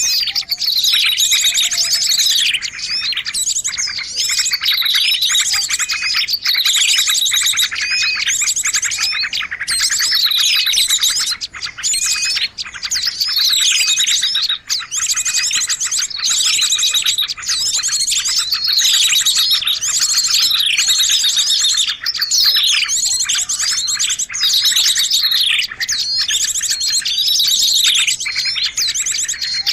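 Bird-lure recording of small songbirds: dense, high-pitched chirping and rapid trills, with a falling call repeating about every second and a half.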